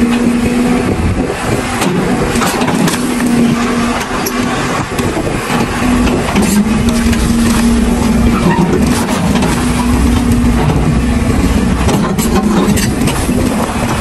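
A JCB's diesel engine running steadily while working, its drone dipping in pitch and picking up again a few times.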